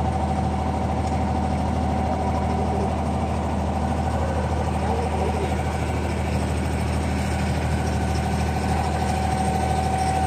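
Diesel inboard engine of a wooden abra water taxi running steadily under way, a constant low hum with a steady higher tone above it.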